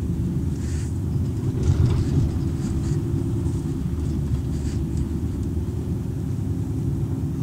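Renault heavy truck's engine and road noise heard inside the cab while driving: a steady low drone.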